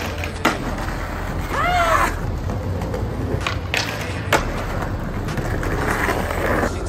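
Skateboard slides on a waxed marble ledge: sharp clacks of the deck popping and landing, the loudest about four seconds in, with the board scraping along the stone and a short rising-and-falling squeal about two seconds in.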